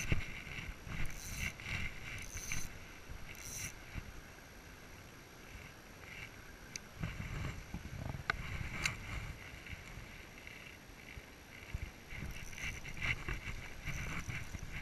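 Rustling and rubbing noise on a body-worn camera as the wearer pushes through streamside vegetation, over a low uneven rumble, with a few sharp clicks between about seven and nine seconds in.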